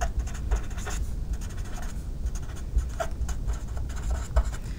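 A pen writing by hand on lined notebook paper, in quick scratchy strokes with many short pen movements and soft low thumps.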